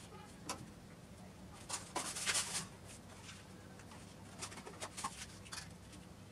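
Short clicks, taps and scrapes of blue PVC water pipe and fittings being handled and worked by hand, loudest in a cluster about two seconds in, over a low steady hum.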